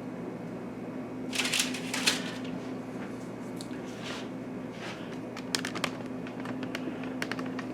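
Faint handling noises: two short scrapes about one and a half to two seconds in, then a run of light clicks and ticks, over a steady low hum.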